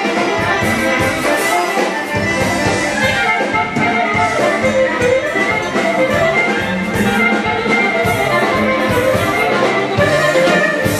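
Instrumental folk dance music playing for a hand-in-hand line dance.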